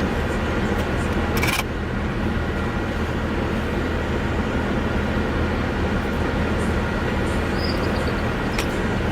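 Steady car engine hum and cabin noise, with a brief hiss about one and a half seconds in.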